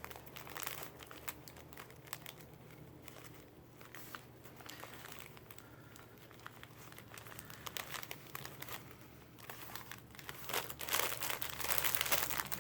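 Packaging being handled and unwrapped by hand, with intermittent crinkling and rustling that grows busier in the last few seconds.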